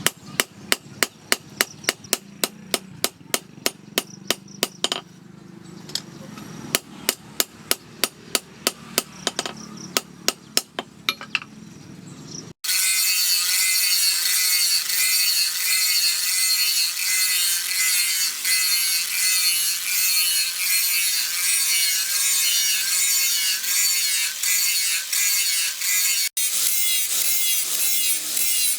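A hammer striking steel in quick, even blows, about three a second, forging the knife blank, with a short pause partway through. After a sudden cut, a hand tool rasps steel in fast back-and-forth strokes, loud and high-pitched, shaping the blade.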